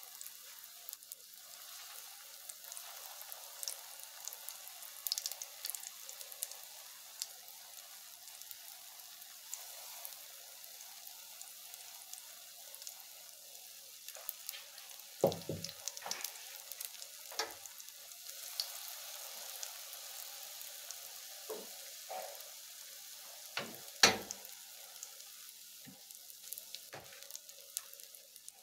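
Drop scone batter frying in oil in a hot pan: a steady sizzle with scattered small crackles. A few sharper knocks come about halfway and again near the end.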